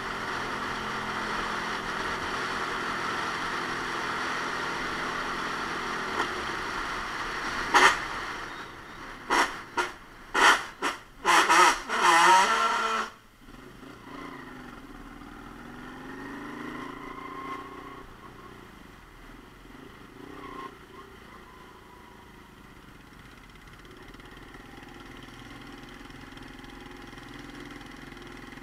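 Romet Ogar Caffe 125 motorcycle ridden on a wet road, heard from a helmet camera: engine running steadily under a rush of wind and tyre noise at speed. About eight seconds in comes a string of loud bursts of noise lasting a few seconds. After that it is quieter, with the engine pitch rising and falling at low speed.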